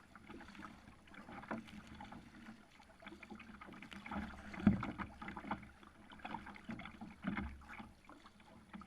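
Water sloshing and lapping against a kayak hull, in irregular splashes, with one louder splash about halfway through.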